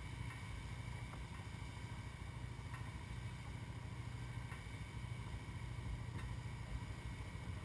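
Honda Rancher ATV's single-cylinder four-stroke engine idling, a faint steady low hum.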